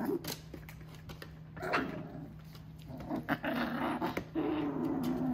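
F1 mini goldendoodle puppies vocalizing as they play-wrestle: a short yip about a second and a half in, then drawn-out low growls over the last couple of seconds.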